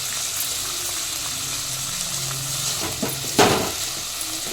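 Chopped bottle gourd, onion and green chillies sizzling as they fry in hot oil in a pan, a steady hiss. A spoon stirs and knocks against the pan a few times, the loudest clatter a little over three seconds in.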